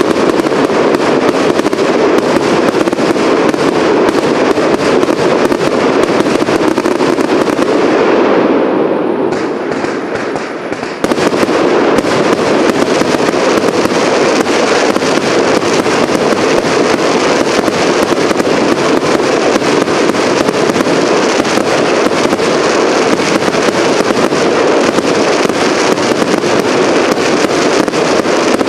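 A cake firework fires a dense, continuous barrage of rapid bangs and crackling. It fades away briefly about eight seconds in, then picks up again suddenly about eleven seconds in.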